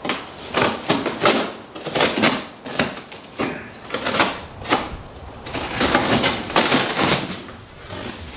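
Box cutter slicing through packaging in repeated strokes, one or two a second.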